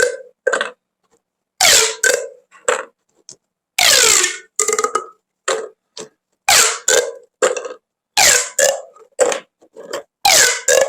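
Corrugated plastic pop tubes being stretched and squeezed, making a quick run of short rasping zips. Many fall in pitch, and they come in clusters of three or four every couple of seconds.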